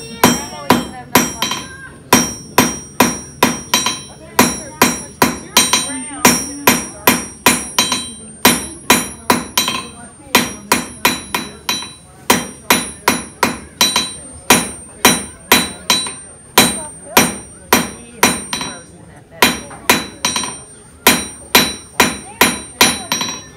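Blacksmith's hand hammer striking hot iron on an anvil while forging a nail by hand, each blow ringing. The blows come in steady runs of about three a second, with a few short pauses.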